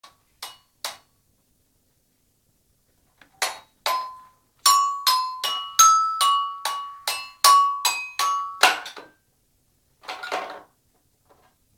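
A child's toy xylophone struck unevenly by a small child, each bright metallic note ringing briefly: two strikes, a pause of about two seconds, then a run of about a dozen quick, irregular strikes. A short, noisier sound follows about ten seconds in.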